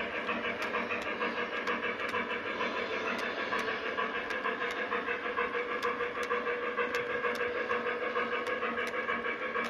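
Lionel Western Maryland Shay model steam locomotive's sound system chuffing steadily at an even beat, with the freight cars' wheels rolling over the track and regular sharp clicks.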